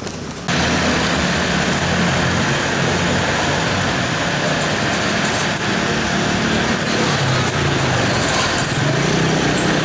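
A truck engine running loudly and steadily, cutting in suddenly about half a second in.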